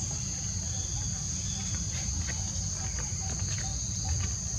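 Insects droning steadily and high-pitched, one unbroken note, over a low rumble, with scattered light clicks.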